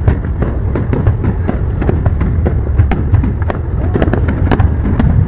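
Fireworks going off: a fast, dense run of sharp crackles and pops over continuous low booming from the bursting shells.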